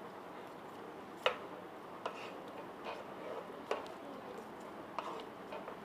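A utensil clicking lightly against a pan about five times, at irregular spacing, as boiling palm-sugar syrup with pandan leaves is stirred and ladled over the leaves, over a faint steady simmer.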